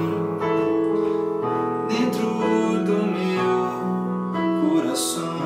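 Keyboard playing a slow instrumental passage between sung lines: sustained piano-voiced chords, changing about once a second.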